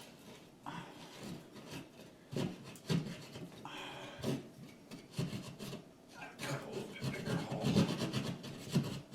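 Irregular scraping and rubbing with scattered light knocks: doorbell wires being fished through a hole in a hollow wall.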